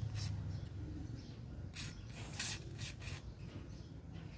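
Aerosol penetrating oil (RP7) sprayed through its straw into a rusted angle grinder's gear head in several short hissing bursts, the loudest about two and a half seconds in, soaking seized screws to loosen them.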